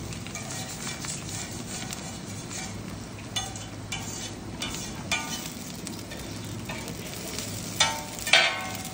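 Shredded cabbage and carrot frying in a wide iron wok, with a steady sizzle. Short metal clinks come now and then from about three seconds in, and two louder metal clanks come near the end.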